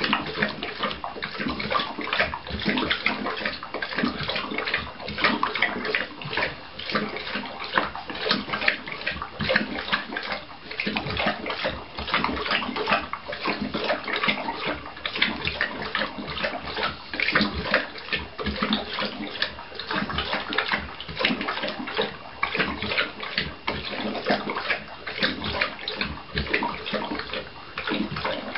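Neapolitan mastiff lapping water from a metal bowl: a continuous run of quick, wet, splashy laps with no pause.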